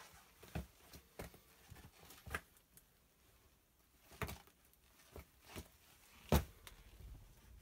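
Irregular knocks and scuffs on rock, about seven in all and unevenly spaced, the loudest a sharp knock about six seconds in, from someone moving through a small limestone cave passage.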